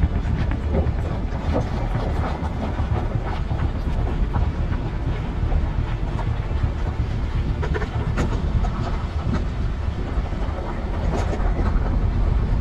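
Wind buffeting the camera microphone over the rumble and rattle of a mountain bike rolling fast downhill on loose gravel and stones, with scattered sharp clicks and knocks as the wheels strike rocks.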